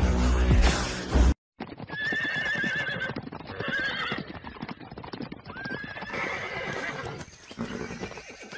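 Music that cuts off abruptly about a second and a half in. It is followed by horses neighing several times over a fast, dense patter of hoofbeats.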